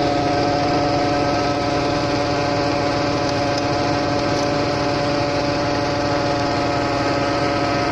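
Portable land dredge running steadily: a loud whining drone with several steady pitches, as its suction hose draws gravel from a dig hole.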